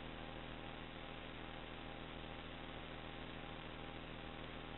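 Steady hiss and electrical hum from the audio channel of an FPV video receiver recording with no microphone connected.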